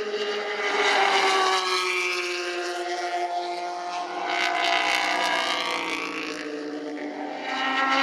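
Race car engines passing at speed: one car's note falls away, then a Toyota TS050 Hybrid prototype passes close about halfway through. Another car's engine rises near the end.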